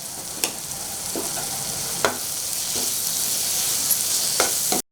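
Spiced onion-tomato masala sizzling in hot oil in a kadai as it is stirred, with a steady hiss and a few sharp scrapes and taps of the spoon against the pan. The chilli and coriander powders have just gone in.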